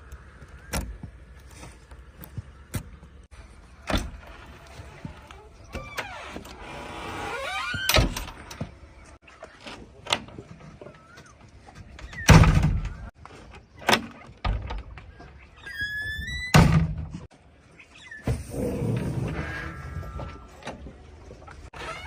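JCB 3DX backhoe loader working: the engine rises in pitch under hydraulic load, with scattered knocks and clunks and heavy thuds about twelve and sixteen seconds in.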